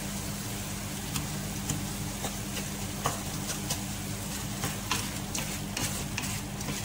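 Chicken and coriander leaves sizzling in a stainless steel pot while a wooden spatula stirs them, with irregular light knocks and scrapes of the spatula against the pot.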